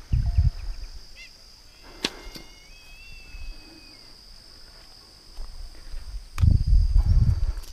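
Footsteps on a dry dirt riverbank, thudding heavily at the start and again for about a second near the end. A single sharp click comes about two seconds in, over a steady high hum.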